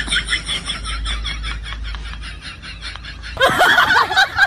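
Laughter in quick, even ha-ha pulses, about five a second, that cuts off abruptly about three and a half seconds in, giving way to a different sound with voices.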